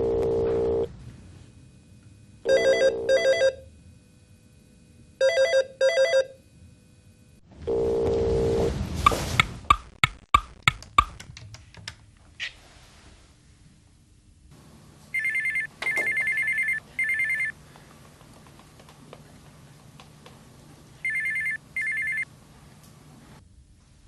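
Telephone sounds: a phone rings twice in double bursts, a steady tone follows, then a quick run of clicks. Later comes electronic ringing in short high beeps, three in a row and then two.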